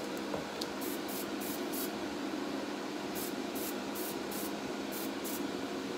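Airbrush spraying a light dusting coat of paint in about ten short hisses, in quick runs, over a steady low hum.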